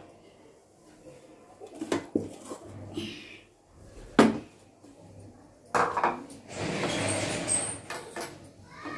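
Kitchen clatter beside a gas stove: scattered knocks of utensils and containers being handled, with one sharp, loud knock about four seconds in and a longer stretch of noise in the second half.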